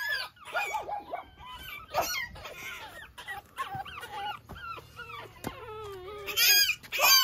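Pekingese puppy whining and whimpering in a string of short, high, wavering cries, with louder, shriller cries near the end.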